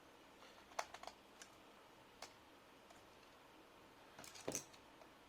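A few faint, scattered clicks and taps of small laptop parts and screws being handled, with a short cluster of louder clicks near the end.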